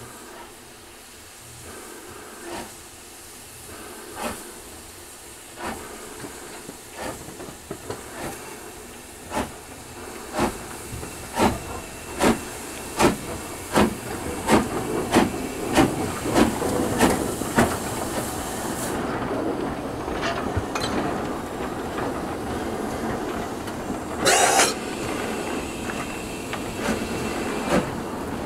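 LNER B12 steam locomotive 8572 working toward and past, its chimney exhaust beats growing louder and quickening from about one every second and a half to about two a second, over a steady hiss. About two-thirds in, the hiss cuts off and the beats give way to the steady rumble of the engine running by, with a short, loud burst of steam hiss near the end.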